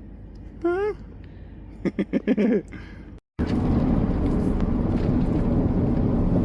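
A brief "Huh?" and a few voice sounds, then after a cut about three seconds in, the steady road noise of a vehicle moving at highway speed.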